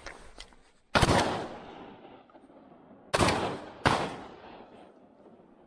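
Three shotgun shots fired at a hare: one about a second in, then two more close together about two seconds later, each followed by a trailing echo.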